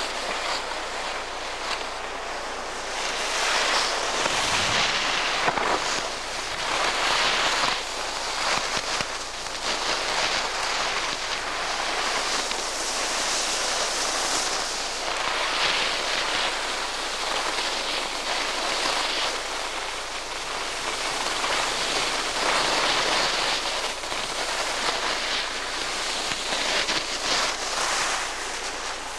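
Rushing hiss of skiing downhill with a handheld camcorder: skis sliding and scraping on packed snow, mixed with air rushing past the microphone, swelling and fading every few seconds as the turns come and go.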